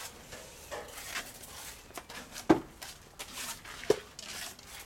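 Steel spatula swiping and scraping adhesive over reinforcing mesh on a plastered window reveal, in several short strokes, with two sharp knocks about a second and a half apart near the middle.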